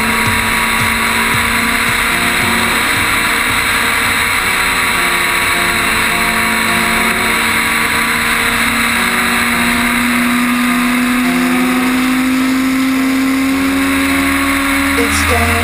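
A Legend race car's Yamaha motorcycle engine running steadily under a light, even throttle, heard from inside the cockpit over road and wind noise. Its pitch climbs slowly over the last several seconds, and the sound changes abruptly near the end.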